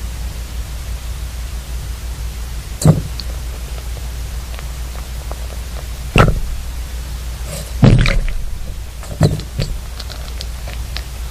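Underground recording from about 17 m depth: a steady low hum and hiss, broken four times by sudden dull thumps that die away briefly. The uploader presents these as blasting and rock-drill work in a tunnel.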